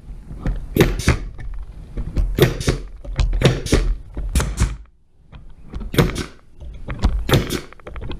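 Pneumatic air stapler firing staples into wooden boards, a series of sharp shots that mostly come in quick pairs, about one pair a second.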